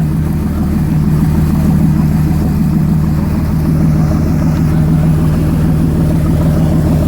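A boat's engine running steadily at low revs, a constant low hum with no change in pitch.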